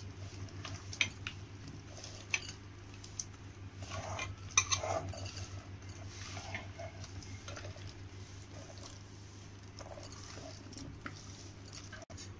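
A hand kneading half-boiled elephant yam pieces into a wet egg-and-flour masala coating in a steel bowl: soft squelching with scattered clicks of pieces and fingers against the bowl, loudest about halfway through. A steady low hum runs underneath.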